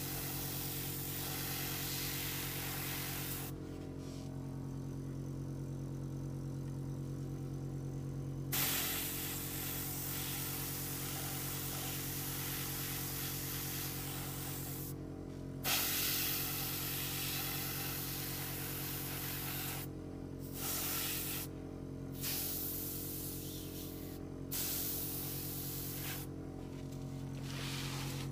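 Gravity-feed airbrush spraying in bursts: a hiss of air and paint that cuts off and starts again several times, with a long pause a few seconds in, as the trigger is released and pressed. Under it a steady low hum carries on.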